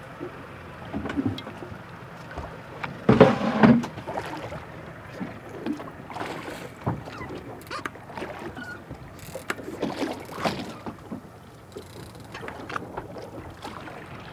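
Boat at sea: a steady low engine hum with irregular rushes of water and wind noise, the loudest a burst of noise about three seconds in.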